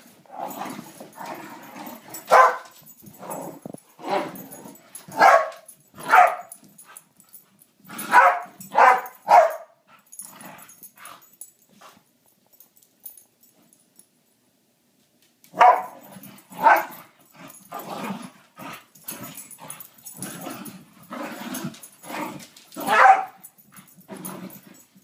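Two dogs, one a beagle, play-fighting and barking in short loud bursts, with a pause of about three seconds midway.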